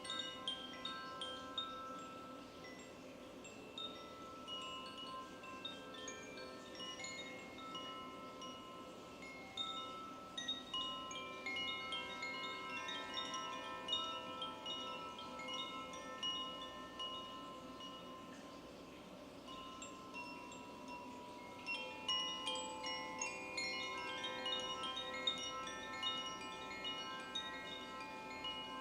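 Koshi chimes being played, many small bell-like tones ringing and overlapping. The strikes thin out a little past the middle and grow busier again near the end.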